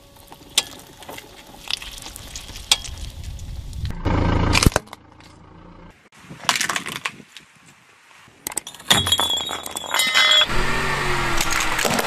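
A car tyre rolling slowly over objects on asphalt and crushing them one after another: crackling, sharp cracks and glass-like clinks in several separate bursts, loudest about four seconds in and again in the last few seconds.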